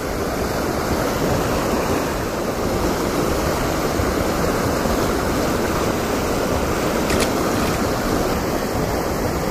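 Flowing river water rushing steadily, a continuous even wash.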